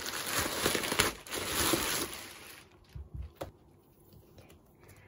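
Plastic bubble wrap rustling and crinkling as it is handled, for about two and a half seconds, then a few soft taps and knocks as the items are set down.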